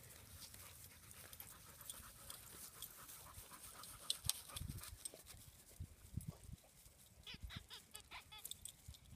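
Faint sounds of a boxer dog at play: panting and movement, with a few soft low thumps and some short high-pitched sounds in the second half.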